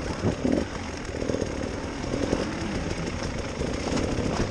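KTM enduro motorcycle engine revving up and down unevenly as the bike is ridden over a rough, rutted dirt trail, heard from the onboard camera with rumble and wind noise.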